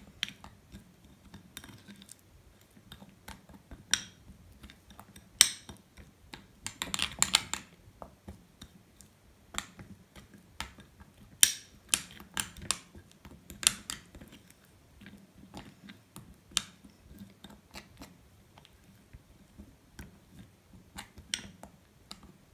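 A small spoon stirring a thick paste of egg yolk, cheese and ground coffee in a ceramic bowl: irregular clicks and taps of the spoon against the bowl, with a longer run of scraping about seven seconds in.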